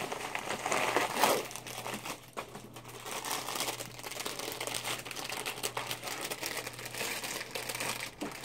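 Plastic shipping bag crinkling and rustling as it is handled and opened, loudest in the first second or so, then continuing more softly in irregular crackles.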